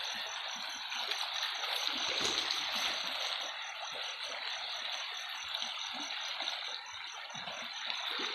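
River water running steadily, an even rushing and rippling.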